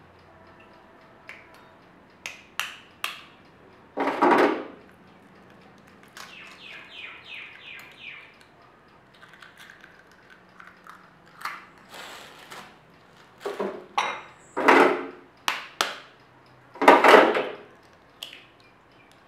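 Eggs tapped against the rim of a cut-glass bowl and broken open: a few sharp clicks of shell on glass, then several louder cracks of eggshell breaking apart, the loudest near the end.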